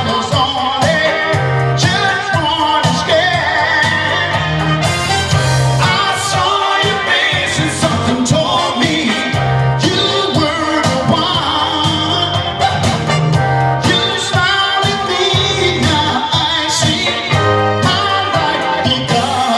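A man singing live into a handheld microphone over a recorded backing track with bass and drums, all through a PA.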